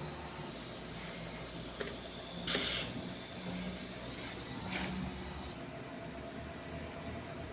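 CNC router running with a steady high-pitched electrical whine over a low hum. The whine shifts in pitch twice, and a short burst of hiss comes about two and a half seconds in.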